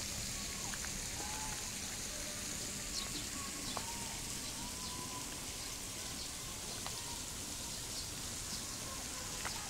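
Steady patter of water drops onto a pond surface, with scattered small plinks and clicks.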